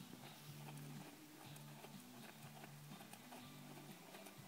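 Quiet music with slow, held low notes that step from one pitch to the next.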